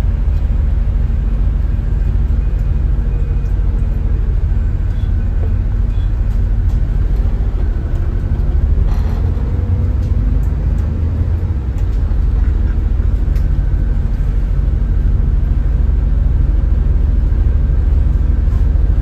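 Volvo B7TL double-decker bus's six-cylinder diesel engine running with a steady low rumble and hum, heard from the upper deck. A brief rattle about nine seconds in.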